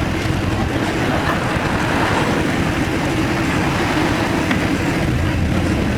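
1966 Triumph Spitfire's 1147cc four-cylinder engine running steadily while driving, heard with road noise.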